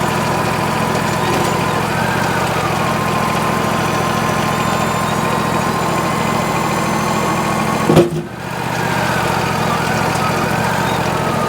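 The 26.5-horsepower engine of a Wood-Mizer LT40 hydraulic sawmill runs steadily while the hydraulics lift and clamp the log. A faint whine rises and falls twice over the engine. About eight seconds in there is a single sharp knock.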